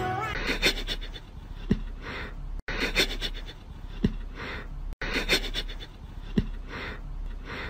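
A cat sniffing a sock, in quick short puffs of breath through the nose. The same few seconds of sniffing, each with one brief low blip, repeat three times.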